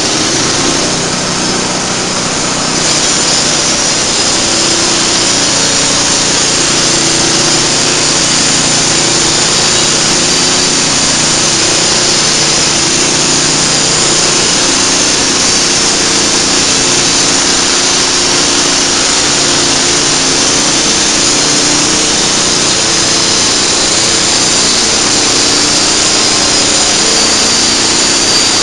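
YES-700GX band sawmill running and sawing through a log: a loud, steady sawing noise over the machine's running, growing louder about three seconds in.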